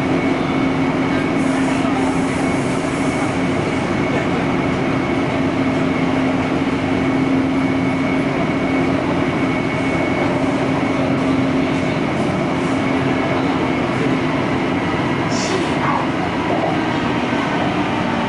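Taipei Metro C301 electric multiple unit running at speed: a steady rumble of wheels on rail with a constant low hum and a fainter high whine held at one pitch.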